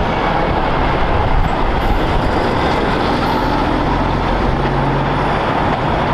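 Fuel tanker truck with a tanker trailer driving past on a highway, a steady mix of diesel engine and tyre noise on the road.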